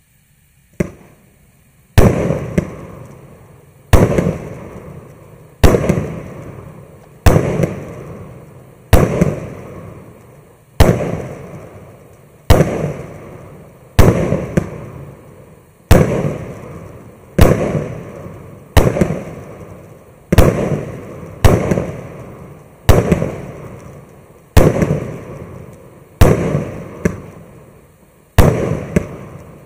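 MAXSEM MC116 'Scintillant' 1-inch-calibre, 64-shot fireworks cake firing. A small pop about a second in is followed by a steady run of sharp bangs, one every one and a half to two seconds, each fading over a second or so.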